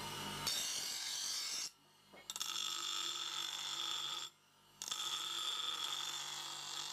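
Bench grinder wheel grinding a forged steel knife blade: a steady, hissing grind over the hum of the grinder's motor, cut off twice briefly.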